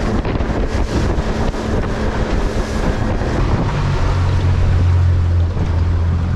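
Small aluminium boat under way on the sea: a steady rush of wind on the microphone and water against the hull, with the low hum of the boat's motor, which grows stronger about halfway through.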